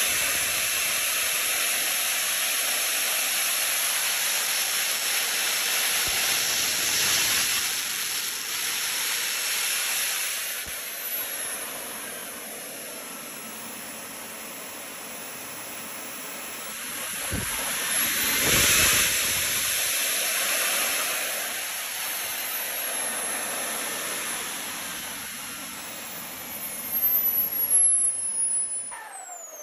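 Wren 54 Mk 3 model turbojet running with a steady high-pitched turbine whine and a rushing jet hiss. It is throttled up to a louder peak about two-thirds of the way through, then eased back. Near the end a burst of louder noise comes, and then the whine falls steeply as the turbine winds down.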